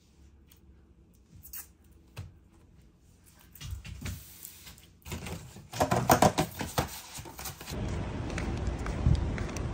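Light clicks and knocks of objects being handled, sparse at first and turning into a busier clatter about halfway through, then a steady rushing noise near the end.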